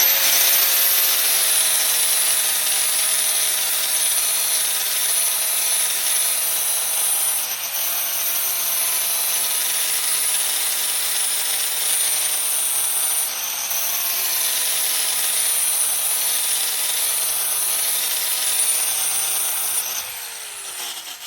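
Grinder with a flap disc running against the steel edge of a log-splitter box wedge, grinding and polishing it, a steady high whine with a grinding hiss. The pitch sags briefly twice as the disc is pressed harder into the steel; near the end it is switched off and spins down with a falling whine.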